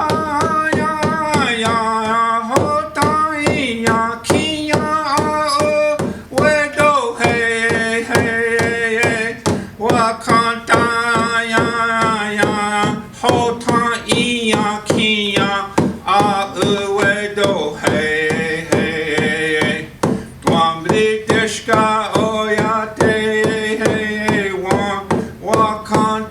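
A man singing a traditional Native American song in a full, held voice, with long notes that slide in pitch, over a steady, even drumbeat.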